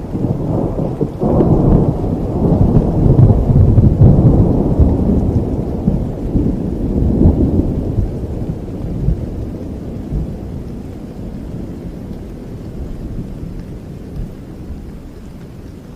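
Thunder rolling over heavy rain: a long low rumble that builds about a second in, peaks over the next few seconds and slowly dies away.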